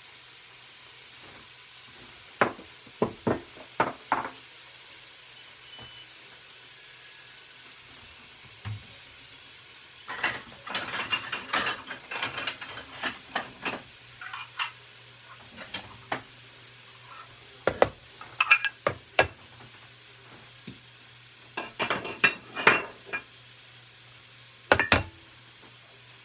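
Ceramic plates and bowls clattering and clinking as they are set down and stacked on a kitchen counter. The knocks come in several short bunches, over a low steady hum.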